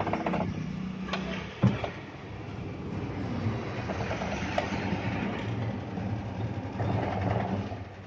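LG washing machine running empty on a test run after a gearbox replacement, its motor and gearbox turning the pulsator with a steady mechanical hum and fast rhythmic whirr. A single sharp knock comes about a second and a half in.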